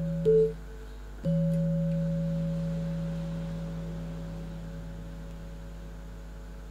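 Javanese gamelan closing a piece: a short struck note, then about a second in a gong stroke that rings on and slowly dies away, marking the end of the gendhing.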